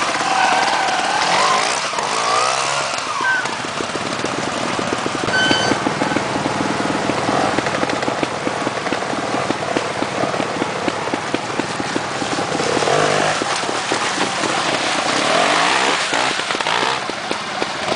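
Trials motorcycle engines revving up and down in short bursts, then running at low revs with a rapid, even firing beat.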